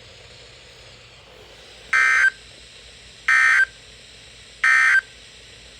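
Emergency Alert System SAME end-of-message data signal: three short, harsh digital warbling bursts about a second and a half apart over a faint hiss, marking the end of the alert.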